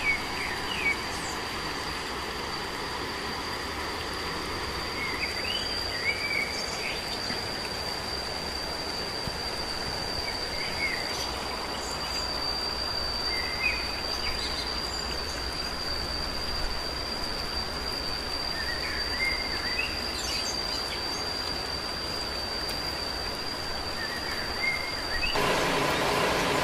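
Outdoor jungle ambience: a steady, high insect whine with short bird chirps every few seconds over a constant hiss. About 25 seconds in, the whine stops and a louder, even rushing noise takes over.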